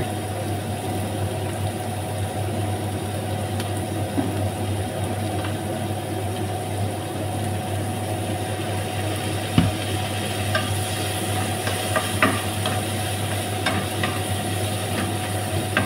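Carrot and red bell pepper strips sizzling in a frying pan over a steady low hum. There is a single knock about ten seconds in, and a wooden spoon stirring and tapping the pan near the end.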